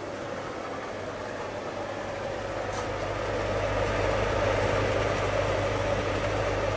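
Electric inflation blower of an inflatable cloud decoration running with a steady motor hum, growing louder about halfway through.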